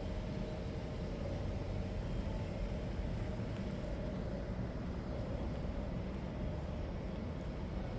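Steady low hum of road traffic, with a faint constant tone above it.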